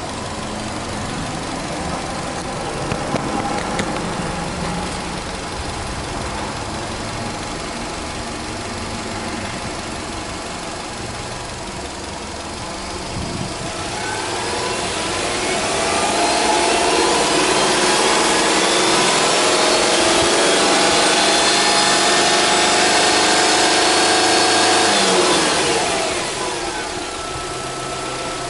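Subaru Legacy 2.0 GT's EJ20 turbocharged flat-four engine idling, then free-revved with the car standing: the revs climb from about thirteen seconds in, stay high and slowly rising for about ten seconds, then drop quickly back to idle near the end.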